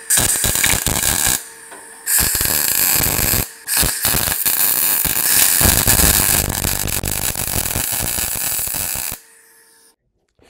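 MIG welding arc crackling as short stitch welds are laid on thin sheet steel, from a Parweld XTM 201Di inverter welder running 0.8 mm wire on synergic settings. Several runs with brief pauses between them; the last lasts about five seconds and ends about nine seconds in.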